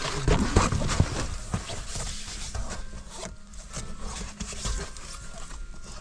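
Crinkling, rustling and light knocking as a foil-backed window sunshade is handled and pressed into place against a car's side window, loudest in the first second or so.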